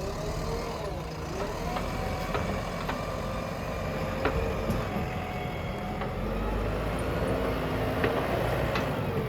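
JCB 3DX backhoe loader's diesel engine running under load while digging, its pitch wavering up and down as the hydraulics work, with a few sharp knocks.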